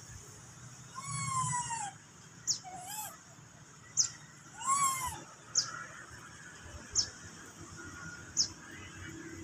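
Two drawn-out animal cries, each rising then falling in pitch, with a shorter wavering cry between them; over them a small bird gives short, sharp high chirps about every second and a half.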